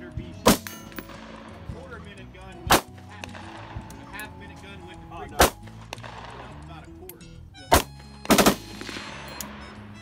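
Semi-automatic pistol fired one shot at a time, about every two and a half seconds, four times, then two quick shots near the end.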